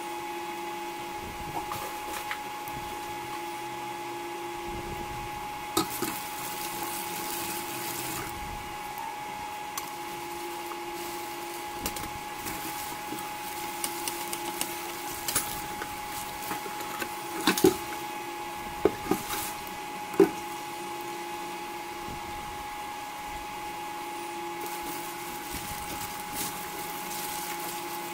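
Pancake batter and butter sizzling in a stainless steel frying pan on an induction cooktop. The cooktop gives a steady whine and a lower hum that cuts in and out every few seconds. A metal spatula scrapes and knocks against the pan several times, most sharply a little past the middle as the pancake is flipped and lifted.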